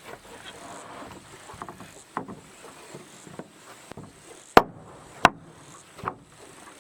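Wood being struck during plank work: light clatter and a small knock, then three loud sharp knocks under a second apart in the second half.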